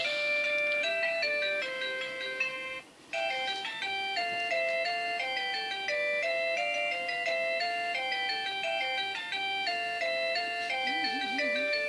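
A jingle-like tune of clean, steady notes stepping up and down, several sounding together, with a short break about three seconds in.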